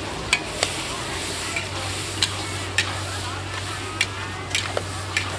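Stir-fry sizzling in a large metal wok while a metal ladle and spatula turn it, with several sharp clinks of metal striking the wok.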